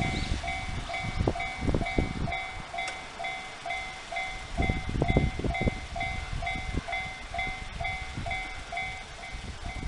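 Japanese railway level crossing's electronic warning bell ringing over and over at an even pace, about two and a half dings a second, as a train passes over the crossing, its wheels thumping over rail joints in clusters.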